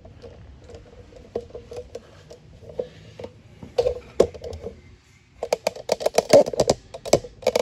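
Handling noise as the camera is carried and repositioned beside the lathe. Scattered light clicks and knocks, then a dense run of rapid rattling clicks from about five and a half seconds in.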